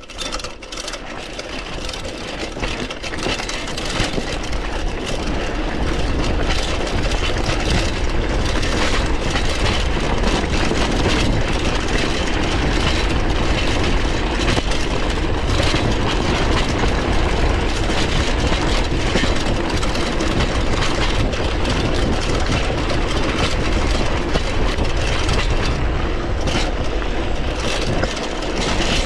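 A 1970s steel shopper bike riding fast over a loose gravel track: tyres crunching, the bike rattling, and wind buffeting the microphone. The noise builds over the first few seconds as the bike picks up speed downhill, then stays steady.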